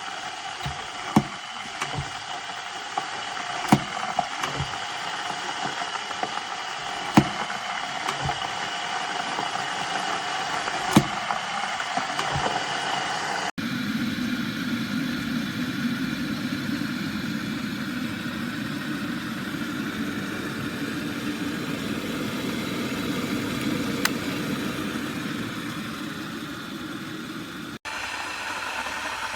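Glass electric kettle (Aigostar Adam 30GOM, 2200 W) heating water: a steady rushing hiss with scattered sharp ticks. About halfway through it changes abruptly to a deeper, rumbling rush.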